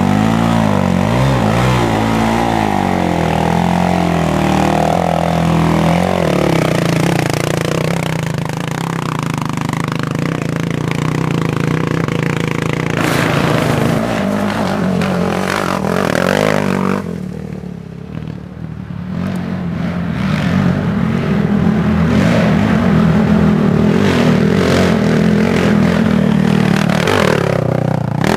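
Racing quad (ATV) engines revving hard, their pitch swinging up and down as the riders work the throttle and shift. About two-thirds through the sound drops off briefly, then another engine note builds and holds steady.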